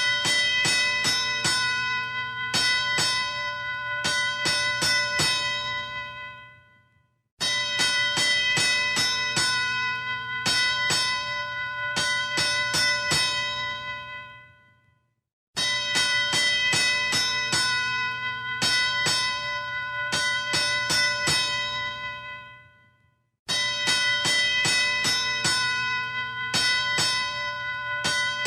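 Boxing ring bell struck rapidly over and over, with a bright, long ringing tone. The run of strikes fades out and starts again every eight seconds or so, four times.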